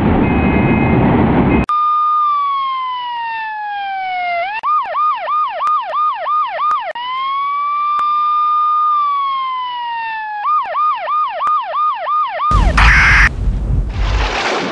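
Electronic police siren alternating between a slow falling-and-rising wail and a fast yelp of about three sweeps a second, twice over. It is preceded by a loud rushing noise that cuts off abruptly, and about two seconds before the end a loud crash like thunder breaks in.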